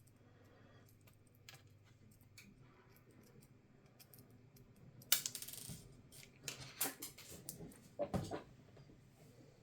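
Light ticks and taps of small hard parts being handled, then, about halfway through, a sharp click followed by a few louder clatters and scrapes, as of a laptop's plastic and metal parts being set down and worked on.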